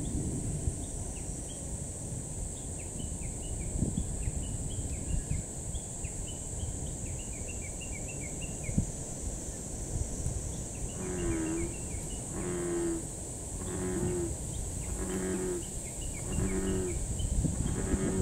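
American bullfrog calling from about 11 s in, a series of deep, cow-like low notes about one every 1.3 seconds. Under it runs a steady high-pitched insect drone, and faint short high chirps come through in the first half.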